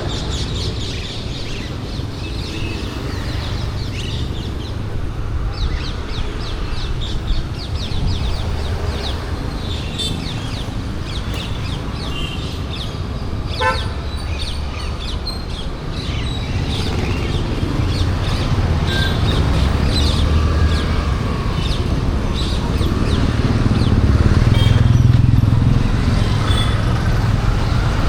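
Busy Indian street ambience: a steady rumble of traffic with a horn toot and many small bird-like chirps over it. The rumble swells as a vehicle passes close near the end.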